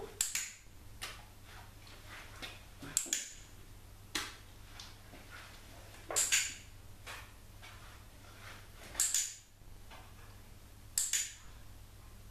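A plastic bowl knocking and scraping on a tiled floor under a puppy's front paws. It comes as five short clatters, two to three seconds apart, over a low steady hum.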